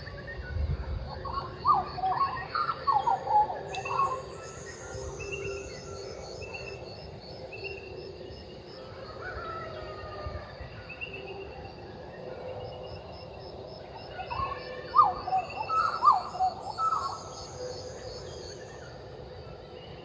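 Butcherbirds singing two bouts of short, sliding notes, one just after the start and another about fifteen seconds in, with fainter bird calls between and a steady, fast-pulsing high chirp behind.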